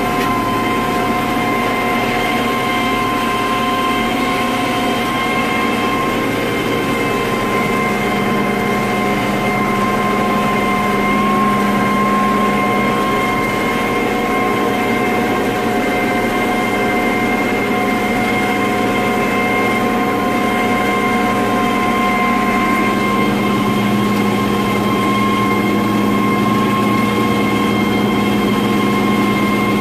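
International 3588 2+2 tractor's six-cylinder diesel engine running steadily under load while pulling a disc, heard from inside the cab as a constant drone with a steady high whine.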